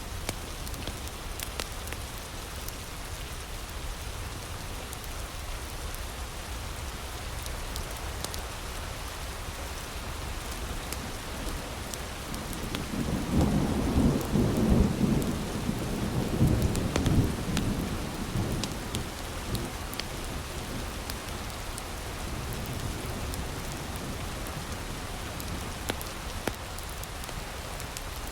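Heavy rain falling steadily with a wood fire crackling in sharp little pops. A roll of thunder rumbles in about twelve seconds in, swells twice over some six seconds and fades away.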